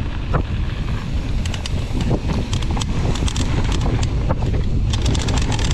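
Wind buffeting the microphone as a mountain bike descends a rough downhill trail, with quick irregular clicks and clatter from the bike rattling over trail chatter and small drops.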